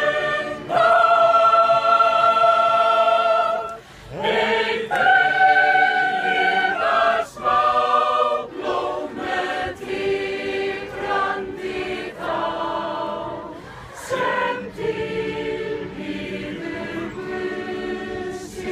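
A group of people singing together in chorus without instruments, in long held notes, phrase after phrase with short breaks between them.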